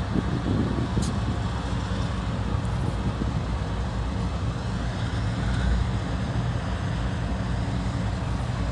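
Double-stack intermodal freight train rolling slowly through the rail yard: a steady low rumble of the train on the tracks.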